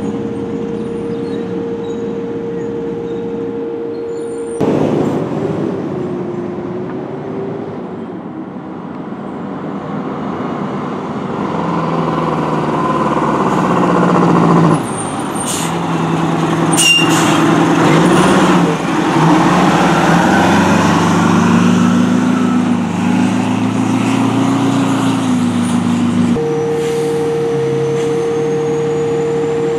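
Fire ladder trucks' diesel engines across several cut-together clips: an engine idling steadily, then trucks pulling away with the engine note rising and falling through the gears, with a couple of sharp air hisses in the middle. A steady idle drone returns near the end.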